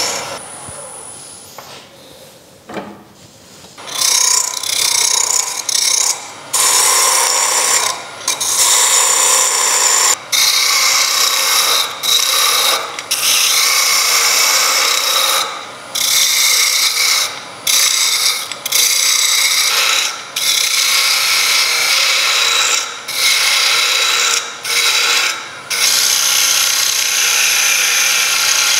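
Gouge cutting a spinning wooden blank on a wood lathe: a steady scraping hiss in repeated passes, broken by short gaps every second or two as the tool comes off the wood. It is quieter for the first few seconds, until the cutting starts.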